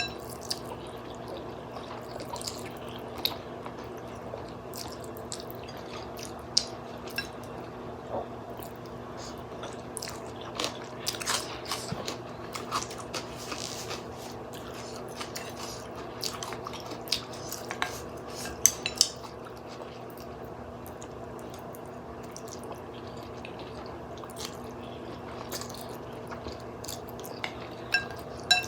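Eating a bowl of glass-noodle soup with fish balls: utensils tap and clink against the bowl in scattered sharp clicks, with wet slurping and chewing sounds, over a steady low hum.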